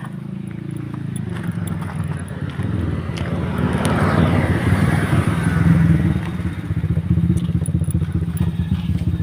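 A motor engine running with a steady low rumble, growing louder toward the middle and staying loud.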